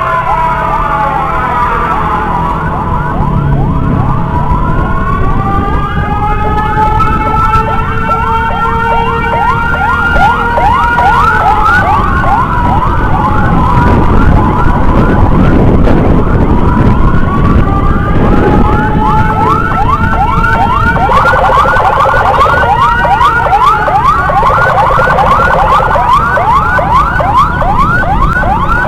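Electronic emergency sirens sounding together: a slow wail that rises and falls over several seconds, over a fast yelp of several quick sweeps a second. A steady low rumble runs underneath.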